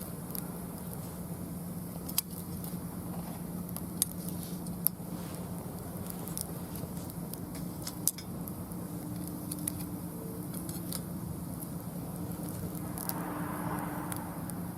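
Mixed wood burning on a fire pit, crackling with scattered sharp pops, a few louder ones spread through, over a steady low hum.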